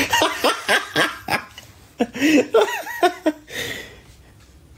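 A man laughing in a run of short bursts for about three and a half seconds, then fading out.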